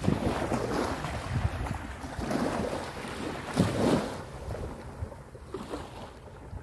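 Wind gusting across the microphone, with small waves washing onto a sandy beach; the gusts swell and ease, strongest a little past halfway.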